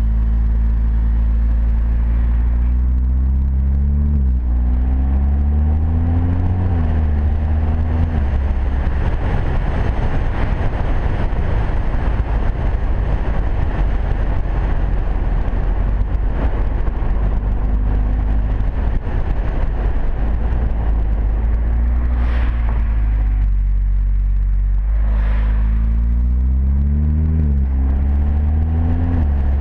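Audi TT-S's turbocharged 2.0-litre four-cylinder engine and exhaust while driving, the pitch rising several times as the car pulls away and accelerates. For over ten seconds in the middle a rushing noise covers the engine, with two short swells of it near the end.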